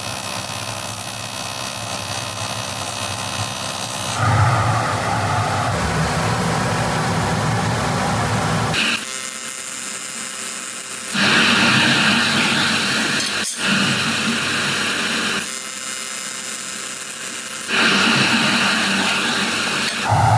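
Steady workshop machine noise that changes abruptly several times, with louder, brighter stretches starting about halfway through and again near the end.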